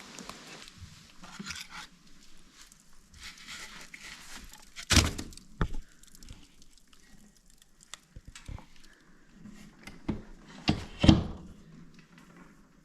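A few scattered knocks and thuds of things being handled, the loudest about five seconds in and a group of three near the end.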